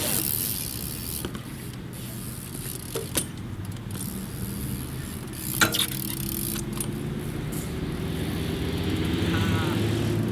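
A steady engine-like hum, rising slightly in pitch over the last few seconds, with a few sharp knocks, the loudest about halfway through.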